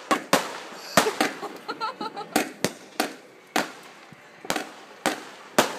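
A multi-shot firework cake firing a long barrage, sharp bangs coming about twice a second, some of them in quick pairs.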